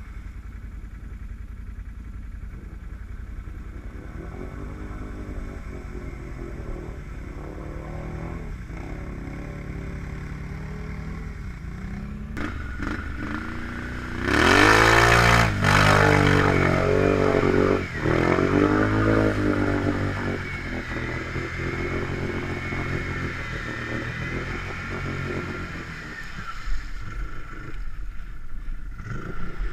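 ATV engine idling steadily, then revving up and down hard as the quad ploughs through deep muddy water. A loud burst of splashing water hits about halfway, the engine pitch rising and falling repeatedly after it, and it revs again near the end.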